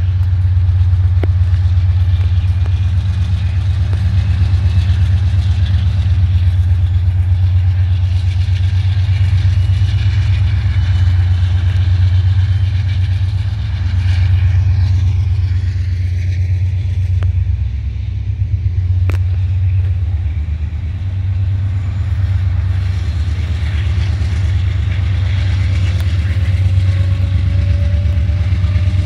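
Norfolk Southern diesel locomotive's engine running with a steady deep drone as it hauls a ballast hopper train past.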